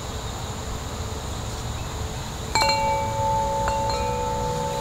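Metal-tube wind chime struck about halfway through, its tubes ringing on in several long, steady tones. A second, fainter strike adds higher notes about a second later.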